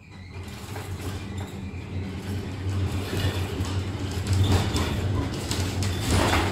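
Žaliakalnis funicular car running on its rails, heard from inside the wooden car: a low steady rumble with light rattling, growing louder over the first couple of seconds as the car gets under way, then holding steady.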